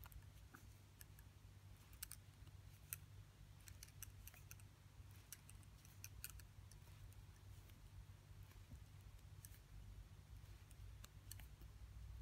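Faint, irregular light clicks of wooden double-pointed knitting needles tapping together as plain stitches are knitted, over a low steady hum.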